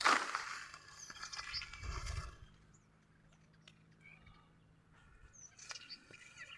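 An animal call, loud at the start and falling in pitch, followed by scattered short high bird chirps and a brief low rumble about two seconds in.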